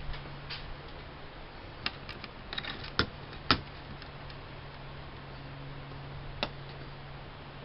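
Scattered sharp clicks and taps of a laptop and small tools being handled during disassembly, a cluster around the middle with the loudest click about three and a half seconds in, over a steady low hum.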